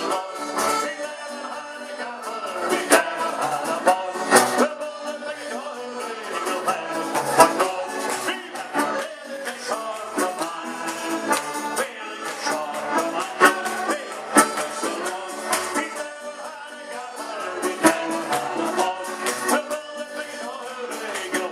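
Live dance band playing an instrumental stretch of a song: a melody line over a beat with sharp drum hits.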